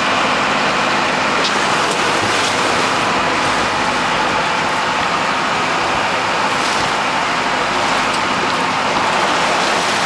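Steady noise of a boat's engine running, mixed with wind and sea rushing, at an even level throughout.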